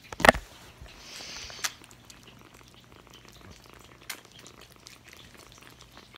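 Kittens purring while they eat from a plate, with small clicks of eating. A loud knock comes just after the start, and a brief rustle follows about a second in.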